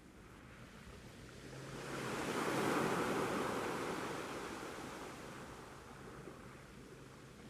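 Sea waves washing onto a beach: one wave swells up about a second and a half in, is loudest around the three-second mark, then slowly recedes into a low hiss.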